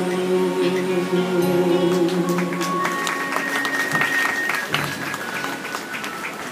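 Male voice holding the last note of a Hindi film song over instrumental accompaniment, ending a little under three seconds in. Audience applause starts about two seconds in and dies away.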